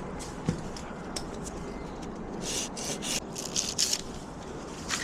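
A single knock about half a second in, then a run of short rasping rubs, four or five in quick succession about two and a half to four seconds in.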